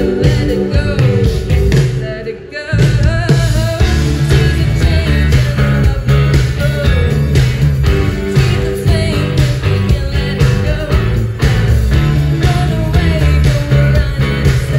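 Live rock band playing with a woman singing over electric guitars, drums and keyboards. The band drops out briefly about two seconds in, then comes back in.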